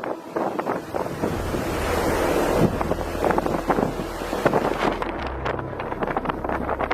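Strong wind buffeting the microphone: a loud rushing noise with a low rumble, broken by many short sharp cracks.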